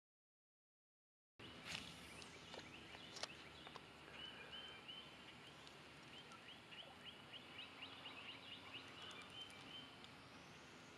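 Faint outdoor ambience by a pond. After a moment of dead silence there is an even background hiss with a few light clicks, and from about four seconds in a rapid series of short, high chirps, about three a second, that runs for some six seconds.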